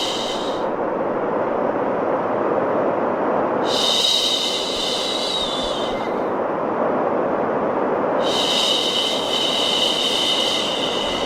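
A long drawn-out 'shhh' shushing sound, repeated about every four seconds, each shush lasting two to three seconds, over steady white noise.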